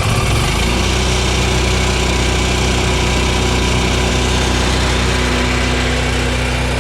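Onan RV QG 4000 gasoline generator running steadily just after starting, its speed settling within the first half-second, then holding an even, loud drone as it warms its oil.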